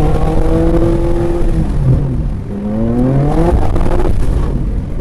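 BMW M2 (G87)'s twin-turbo straight-six engine under way on track: the note holds and sags for the first two seconds, then climbs steadily as the car accelerates, and drops away near the end.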